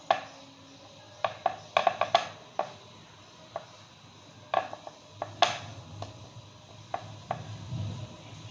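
Irregular sharp clicks and taps of hands and dough against a ceramic plate while filled dough pockets are pressed and sealed, more than a dozen in all, the loudest about two and five and a half seconds in. A low rumble comes in near the end.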